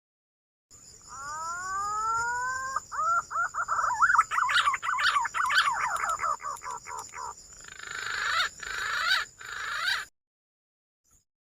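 Green pigeon (punai) calling: a rising whistled note, then a fast run of warbling notes, then a few rougher falling notes, cutting off abruptly about ten seconds in. A steady high-pitched whine lies under the calls.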